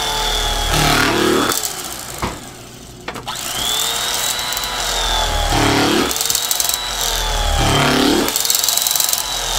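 Corded electric carving knife running as it slices through a smoked brisket flat. Its motor whine sags in pitch and recovers every couple of seconds. It stops for about a second near the two-second mark and then starts again.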